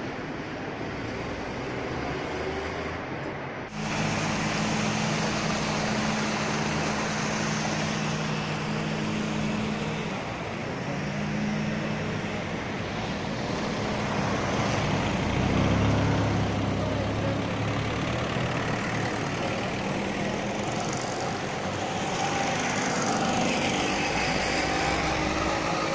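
Town street traffic: car and truck engines running and passing, over a steady background of road noise. The sound changes abruptly about four seconds in.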